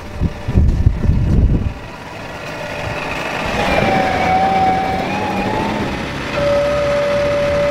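Large farm tractors running in a muddy field, with wind buffeting the microphone for the first second or so. A steady whining tone comes in around the middle and a second steady tone starts near the end.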